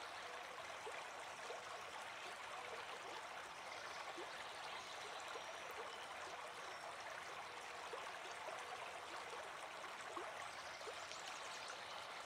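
Faint, steady sound of flowing stream water, an even rush with small scattered trickling ticks.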